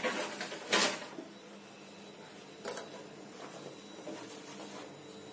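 Two brief knocks from kitchen things being handled, about a second in and again near three seconds, over a faint steady hum.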